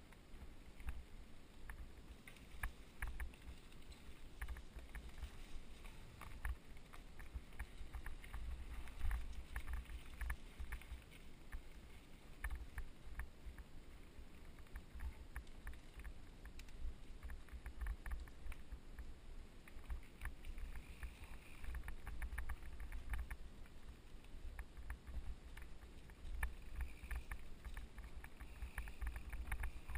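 Mountain bike ridden along a dirt singletrack, heard from an onboard camera: wind buffeting the microphone as a gusty low rumble, with the bike clattering and clicking over bumps and roots in the trail.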